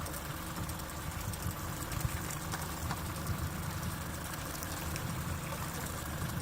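Boat motor running steadily at slow trolling speed, a low rumble with a steady hiss over it.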